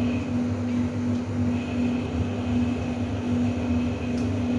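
A steady low mechanical hum with one even tone, with a faint clink about four seconds in.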